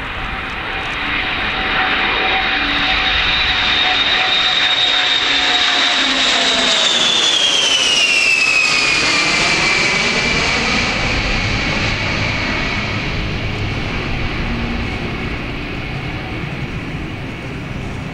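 Boeing E-3 Sentry AWACS's four turbofan engines in a flypast: a jet rumble with a high whine that swells as it approaches. The whine drops in pitch as the jet passes about eight seconds in, and the sound fades slowly as it flies away.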